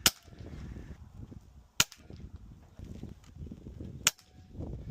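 Three sharp reports from a .22 calibre (5.5 mm) PCP air rifle being fired, about two seconds apart, each cracking and gone at once.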